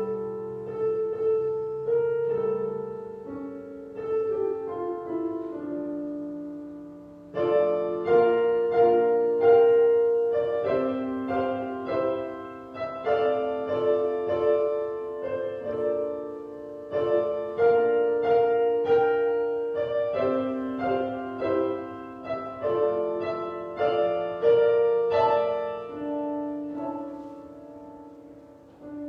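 Solo piano music, played slowly with sustained chords; it swells with louder chords about seven seconds in and again near the middle and later on.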